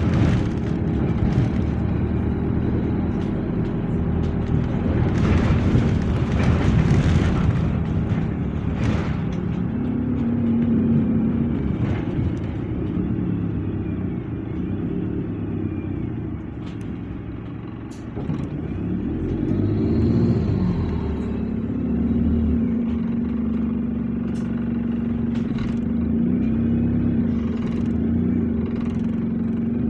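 Double-decker bus's diesel engine running under way, heard from inside the upper deck. The engine note changes in pitch as it drops back about eighteen seconds in and then picks up again. A spell of hiss comes about five to eight seconds in.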